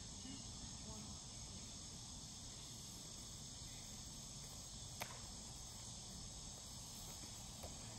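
A steady, faint, high-pitched chorus of insects singing, over a low outdoor rumble. About five seconds in there is a single sharp slap.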